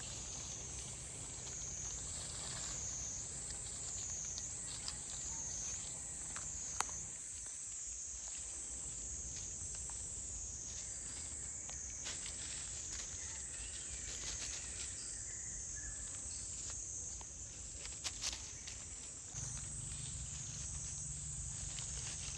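High insect drone that wavers up and down in pitch about once a second, with a low rumble underneath and a few scattered sharp clicks.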